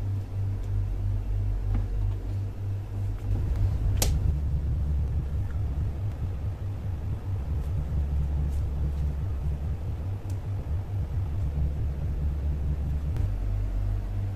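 A low, steady hum that grows heavier from about three seconds to about thirteen seconds in, with a single sharp click about four seconds in.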